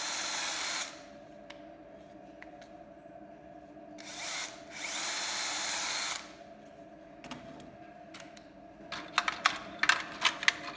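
Cordless drill boring holes into the corners of a wooden block. A run of drilling stops about a second in, a short whirr comes near the middle, and then a second run lasts about a second and a half. Scattered small clicks and knocks follow near the end.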